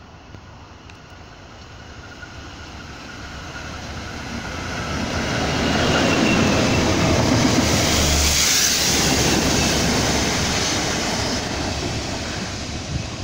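Diesel-hauled freight train of tank wagons passing on the near line: the rumble of the locomotive and the wheels on the rails builds over several seconds, peaks about halfway, then fades as it goes by.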